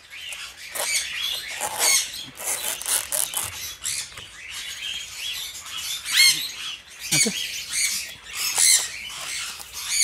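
Aviary parrots chirping and squawking, many short, high-pitched calls one after another, with one louder rising squawk about six seconds in.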